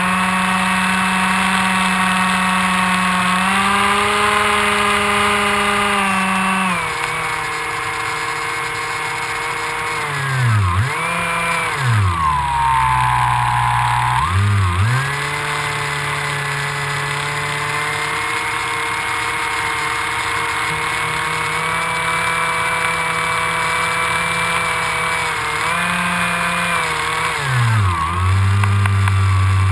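Electric motor and propeller of an AXN Floater Jet RC plane, heard from a camera on board: a steady pitched whine over wind rush. The pitch dips and climbs back sharply a few times as the throttle is eased off and opened again, twice about a third of the way in and once near the end.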